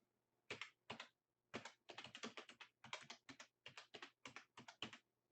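Faint typing on a computer keyboard: a quick, irregular run of keystrokes.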